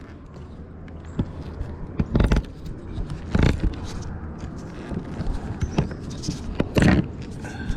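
Knocks and scrapes from handling gear on a kayak, the loudest about two, three and a half and seven seconds in, over a steady low rumble.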